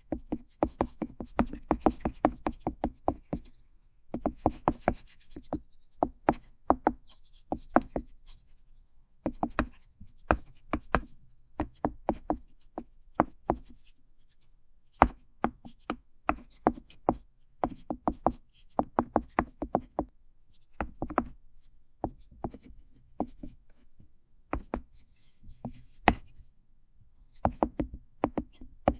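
Chalk writing and tapping on a chalkboard: bursts of quick, sharp chalk taps and strokes, with short stretches of scratchy scraping between them and brief pauses between bursts.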